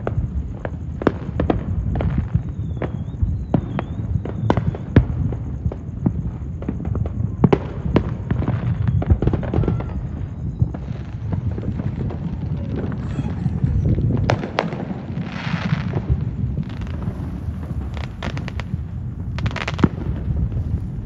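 Aerial fireworks going off all around: many sharp bangs and cracks at irregular intervals over a continual low rumble of distant booms, with a brief hiss about fifteen seconds in.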